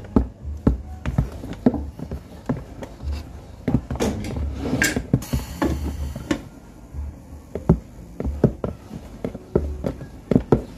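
Irregular taps, knocks and clatter of kitchen things being handled, with a brief rustling hiss about five seconds in.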